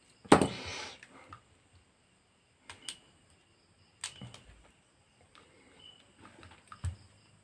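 A sharp clatter, then a few scattered small clicks and taps from handling small tools and phone parts during a repair.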